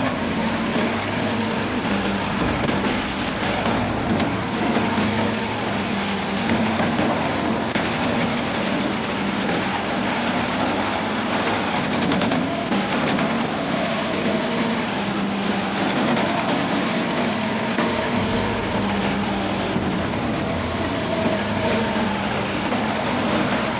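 Large diesel-powered wood chipper running at working speed: a steady engine drone under the dense noise of chipping.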